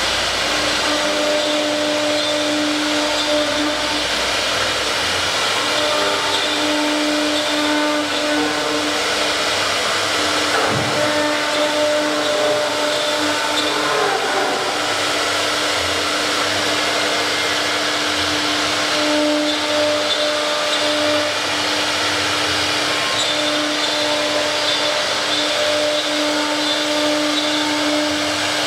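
Double-head CNC router running: a steady motor whine with a rushing, vacuum-like hiss. There is a brief low thud about eleven seconds in.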